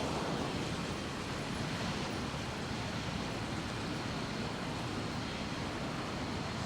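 Steady city street noise: a constant hum of road traffic, with no single distinct event standing out.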